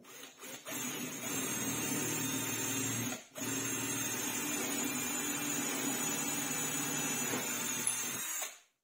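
Electric power tool motor running at a steady speed, briefly released and restarted about three seconds in, then switched off near the end.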